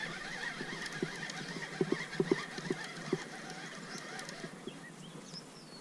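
Conventional fishing reel being cranked to bring in a hooked fish, a faint steady whir with scattered soft clicks.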